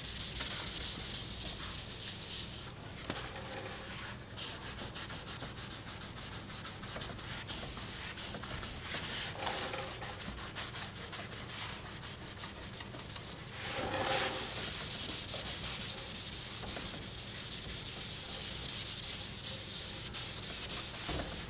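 Hand sanding of a car's painted body panel with a 400-grit abrasive pad: quick back-and-forth scrubbing strokes that feather the paint edge into a transition zone for primer. The strokes are louder at first, go softer at about three seconds, and grow louder again from about fourteen seconds.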